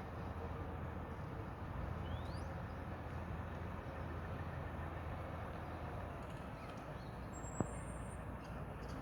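Steady low rumble of distant road traffic, with one short rising bird chirp about two seconds in and a single sharp click near the end.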